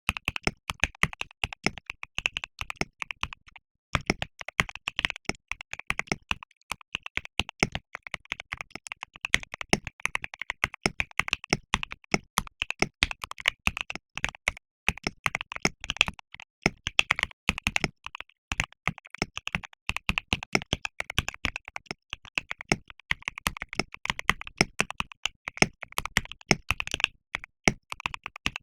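Slow typing on a KBD67 Lite R4 mechanical keyboard with lubed and filmed linear Alpaca switches, PBT keycaps and a PE foam mod: a steady run of keystroke clacks, with a short pause about three and a half seconds in.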